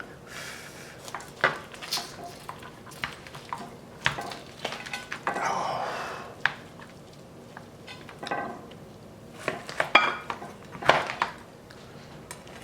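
Knife and fork clinking and scraping on a plate as a rack of grilled baby back ribs is cut apart: scattered sharp clinks, with a longer scrape about five seconds in.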